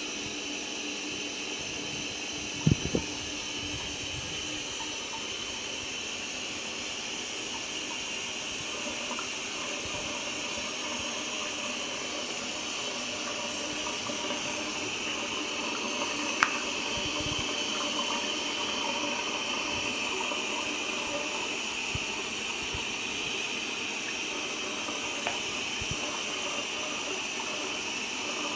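Bathtub tap running steadily, water pouring into the tub, with a couple of brief knocks.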